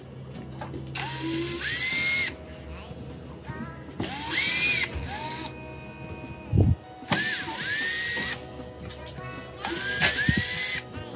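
Electric screwdriver running in four short bursts of about a second each, its whine rising in pitch as it spins up and then holding steady, backing screws out of a portable speaker's casing.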